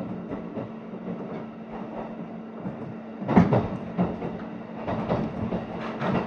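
An electric train running, heard from inside the carriage. A steady hum and rumble give way, about three seconds in, to wheels knocking over rail joints in a run of sharp thumps.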